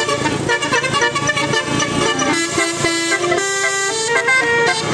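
Telolet bus horn, a set of multi-tone trumpet horns playing a tune: a run of held notes that step up and down in pitch. The notes are jumbled at first and clearer from about two seconds in.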